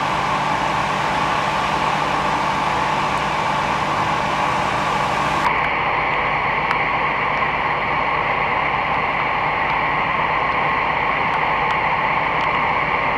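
Steady mechanical hum over a constant noisy rush, cutting abruptly to a slightly different steady hum about five and a half seconds in.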